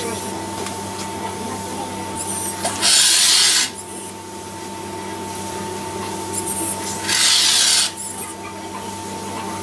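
Two short bursts of hissing, about three seconds and seven seconds in, as the robot sprays one-pack polyurethane foam from its pressurised can through a hose nozzle; the hiss is the loudest sound. Under it runs a steady electrical hum with a thin high whine.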